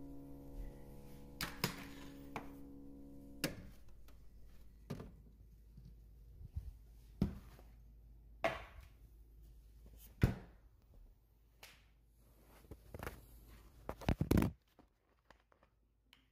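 Piano music for the first few seconds, stopping about three and a half seconds in. It is followed by scattered knocks and thunks of a phone being handled and moved about over a kitchen counter, ending in a quick cluster of knocks as it is set down.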